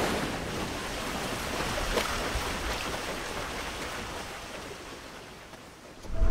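A rushing, wind-like whoosh sound effect fading away slowly over several seconds, with a faint tick about two seconds in. Music starts at the very end.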